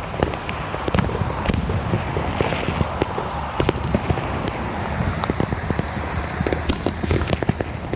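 Many fireworks and firecrackers going off at once: a steady crackle of sharp pops, with a few louder bangs standing out.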